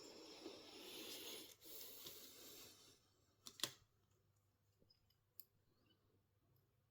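Hands working on a smartphone's parts: about three seconds of faint rustling or scraping, broken briefly once, then one sharp click followed by a few light ticks.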